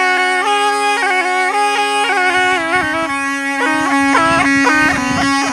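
Snake charmer's pipe playing a wavering melody over a steady drone note. Low thumps join in about two seconds in.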